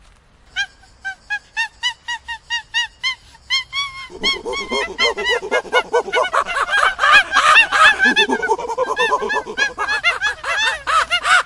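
Monkeys calling. A quick series of short calls, each rising and falling in pitch, comes about four a second. About four seconds in, more animals join with overlapping calls, making a loud, dense chorus.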